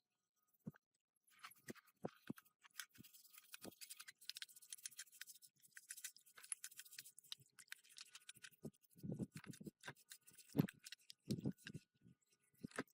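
Hand work on metal engine parts: a stretch of scraping with small clicks, then a few dull knocks in the last few seconds.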